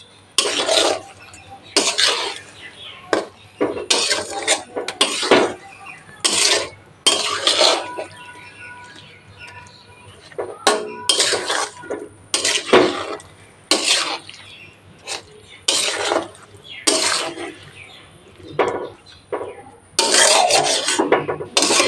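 Metal spatula scraping around a metal karai in irregular strokes, about one a second, as it gently mixes raw small fish with spice paste, oil and tomato. The pan is not yet on the flame, so there is no sizzle.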